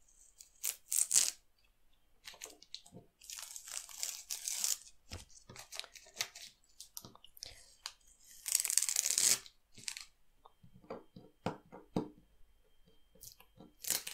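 Masking tape being peeled off the edges of a painting on paper: a dry ripping noise in three main pulls, the longest lasting over a second, with small clicks and rustles of paper handling in between and another pull starting at the very end.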